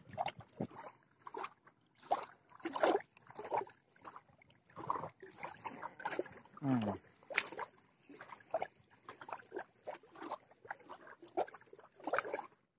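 Irregular handling noises, with rustles and light knocks, as a hook is baited and a spinning rod is picked up, over faint water trickling and lapping at the shore. A short falling tone comes about six and a half seconds in.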